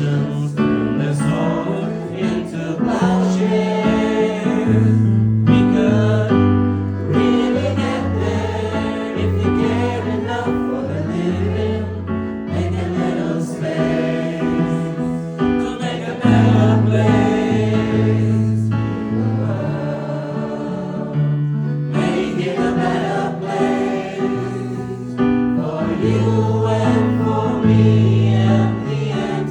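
A group singing a Christmas song together, with a steady instrumental accompaniment and a bass line under the voices.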